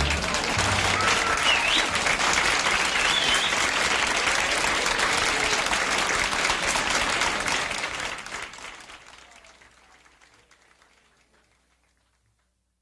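Audience applauding after a song, dense steady clapping that fades away over the last few seconds.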